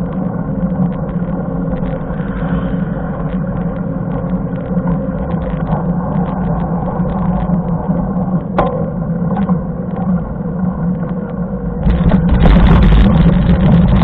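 Riding noise picked up by a bike-mounted action camera: wind on the microphone and tyres rolling on asphalt, with frequent small rattles and clicks. Near the end it turns louder and harsher as the bike rolls onto loose gravel.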